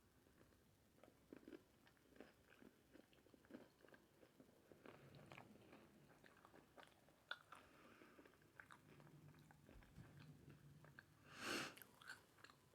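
Faint close-up chewing and mouth sounds of someone eating tacos: small wet clicks and crunches, with one brief louder rush of noise near the end.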